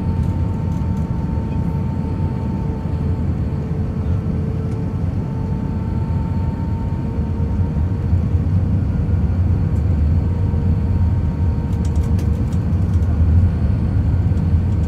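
Cabin noise of an Airbus A319-131 on final approach with its flaps extended: a steady low rumble of airflow and its IAE V2500 engines, with faint steady hums riding over it. A few faint ticks come about twelve seconds in.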